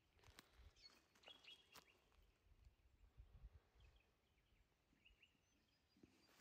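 Near silence, with a few faint, high, short bird chirps and soft clicks.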